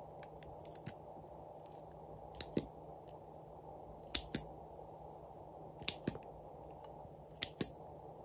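Plastic wand-applicator tube and its screw cap handled by hand: sharp clicks in pairs, five pairs in all, about every one and a half to two seconds, over a steady low hiss.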